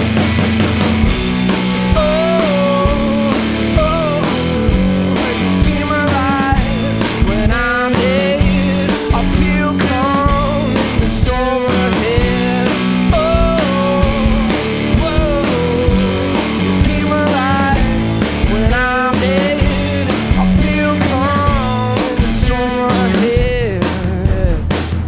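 A two-piece blues-rock band playing live, with guitar and a drum kit under a sung vocal line.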